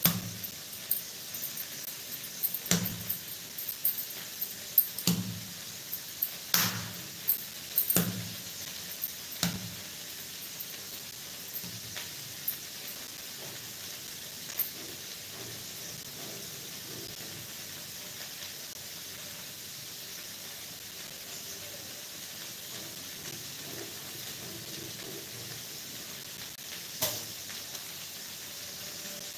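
Soft knocks and taps of dough being rolled and divided by hand on a granite worktop, a dozen or so in the first ten seconds and one more near the end, over a faint steady hiss.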